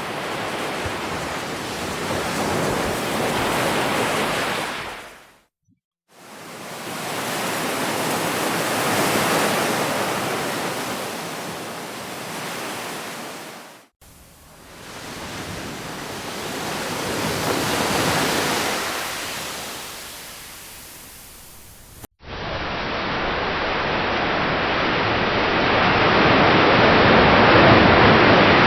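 Ocean waves breaking and washing up, as several separate takes spliced together, each swelling and then fading. A brief silent gap comes after about five seconds, then two abrupt cuts later on, the last take sounding duller.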